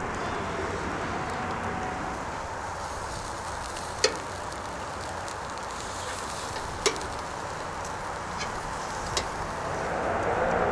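Marinated shark-meat kebabs on metal skewers sizzling over hot charcoal: a steady hiss with a few sharp crackling pops, the loudest two about four and seven seconds in.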